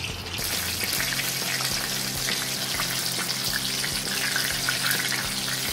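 Spring rolls deep-frying in hot oil in a kadai: a steady sizzle with fine crackling. It grows louder about half a second in as the next rolls go into the oil.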